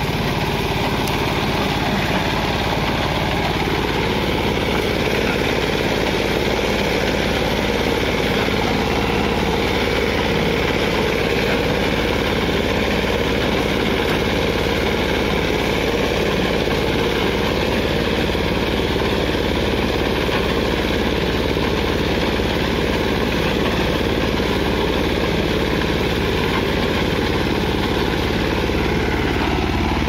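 Greaves 10 HP engine of a BCS three-wheel reaper binder running steadily while the machine cuts wheat. The note rises slightly a few seconds in and drops back near the end.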